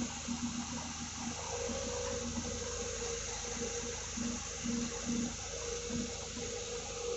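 Water splashing and pouring as a Volvo excavator's bucket scoops in a river and lifts out streaming water and mud, over the steady low hum of the machine's running engine.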